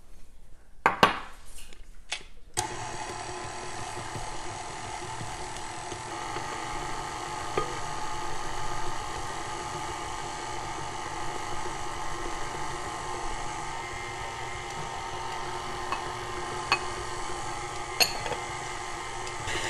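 KitchenAid tilt-head stand mixer switching on about two and a half seconds in and running steadily, beating a cream cheese frosting. A few light clicks sound over the motor.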